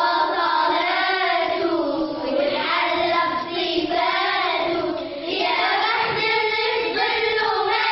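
A group of children singing a religious nasheed together in chorus, the melody running on without a break.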